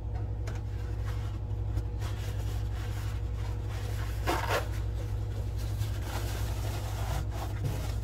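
Paper towels rubbing and scraping in a dishwasher's sump as standing water is mopped out, with a short louder rustle about four seconds in, over a steady low hum.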